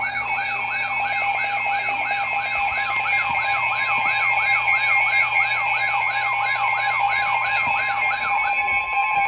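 Electronic warbling alert siren, rising and falling about three times a second over a set of steady tones, sounded for an incoming severe weather warning. The warble stops shortly before the end while the steady tones carry on.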